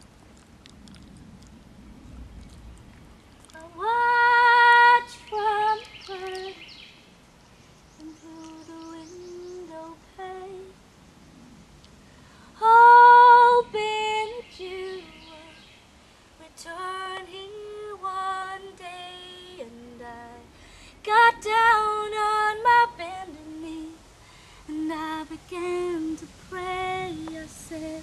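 A woman singing solo and unaccompanied, holding long notes in phrases broken by short pauses; her first phrase comes in about four seconds in.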